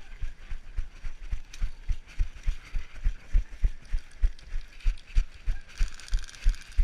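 A person running, footfalls thudding steadily about three to four times a second.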